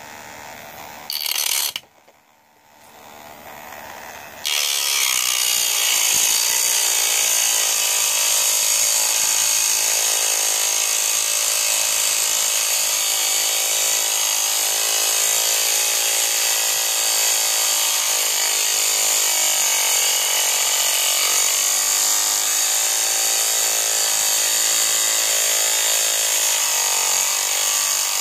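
A homemade mini electric grinder, a small motor salvaged from a laser disc player driving a thin cutting disc, grinds into a steel concrete nail. The sound is quiet and uneven at first, then about four seconds in it turns to a loud, steady, high-pitched grinding whine that holds as the disc cuts into the nail.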